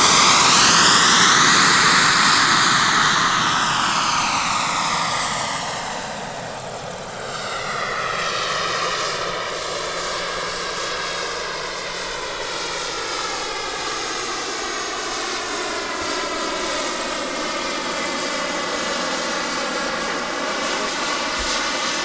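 Large turbine-powered RC model of an SA 315B Lama helicopter in flight: a steady high turbine whine over the rotor and exhaust noise. It is loudest as it passes low at first, fades over the first several seconds as it climbs away, then holds steady at a distance, with a swirling, phasing sweep to the noise as it moves.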